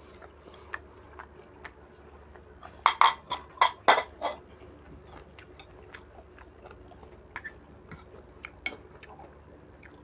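Close-up eating sounds: chewing and lip smacks, with a few light clicks of a spoon and fork against the bowl. A short run of louder smacks comes about three to four seconds in.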